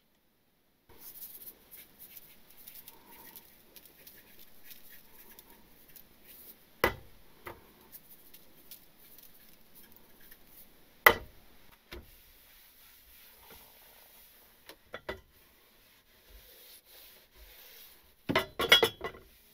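Kitchen food-prep handling on a wooden cutting board: soft rustling and rubbing of hands, plastic wrap and paper towel. Two sharp knocks about seven and eleven seconds in as things are set down on the board, a few lighter clicks, and a short clatter near the end as the kettle on the counter is moved.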